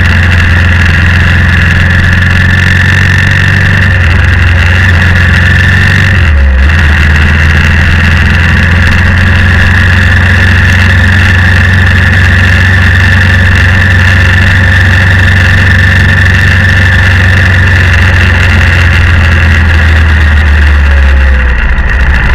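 BMW G650X motorcycle's single-cylinder engine running under way, a loud steady low drone with a steady high whine over it. There is a short break in the drone about six seconds in, and the drone eases near the end.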